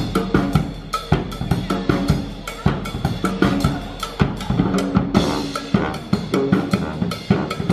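Music with a busy drum-kit beat: bass drum and snare hits over pitched instruments.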